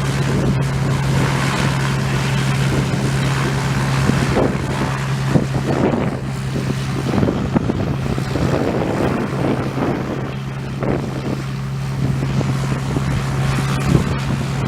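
An aircraft engine running at a steady low pitch, with wind gusting on the microphone over it.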